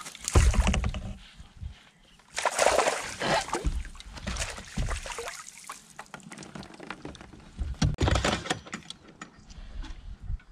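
Water splashing and sloshing as a hooked bass is brought alongside a kayak and netted. Loud bursts come in the first second and again about two and a half seconds in, followed by a run of short knocks and rattles from the landing net and gear against the kayak.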